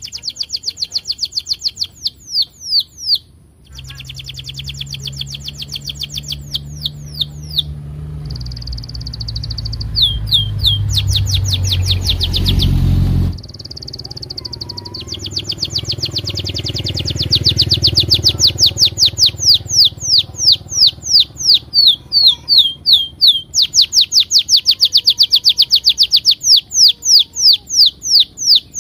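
Domestic canary singing a long rolling song: fast runs of short, high, down-slurred chirps, with a few held whistled notes between phrases. A low rumble sits underneath, loudest around ten to thirteen seconds in.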